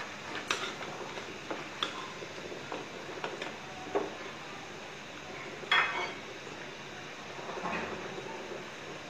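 Long slotted metal spoon knocking and scraping against the rim and sides of an aluminium cooking pot as a whole cooked chicken is lifted out of thick masala gravy. There are a few scattered clinks, the loudest about six seconds in, and a softer scrape near the end.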